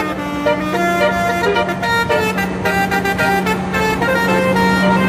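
Bus telolet horn playing a fast melody of short, trumpet-like notes over a steady low hum.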